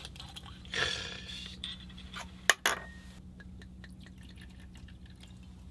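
Soju poured from a glass bottle into a small glass: a short pour about a second in, then two sharp clinks of glass.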